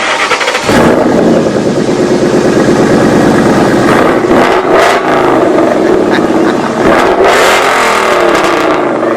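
Car engine running and revving, with pitch rising and falling a couple of times.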